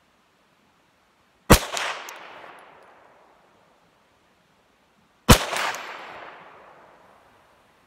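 Two single shots from a Calico M100 pistol firing .22 Long Rifle, a little under four seconds apart, each followed by an echo that dies away over about two seconds.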